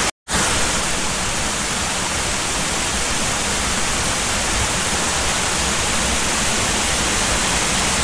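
Small waterfall, Tom Gill, pouring over rock into a shallow rocky pool: a steady, loud rush of water. It cuts out for a split second just after the start.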